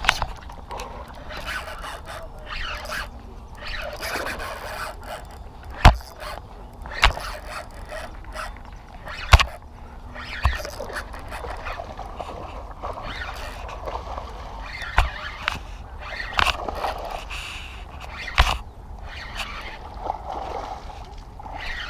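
Clothing and arm rubbing and bumping against a chest-mounted GoPro: a rustling scrape broken by several sharp knocks, the loudest about 6 and 9 seconds in.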